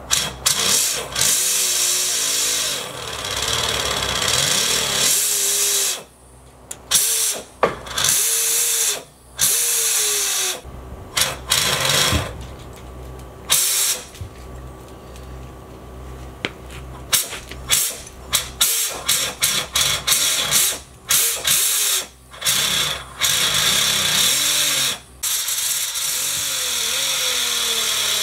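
A small electric motor, of a power tool or a hoist, running in many short bursts and stopping between them, with longer steady runs near the start and near the end.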